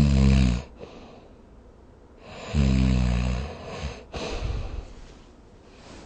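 A person snoring: two snores that fall in pitch, one at the start and one about two and a half seconds in, followed by a noisy breath out.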